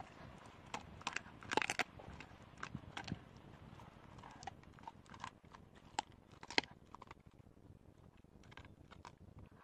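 Golden retriever crunching and chewing raw bones: irregular crunches, closely bunched in the first few seconds, then sparser.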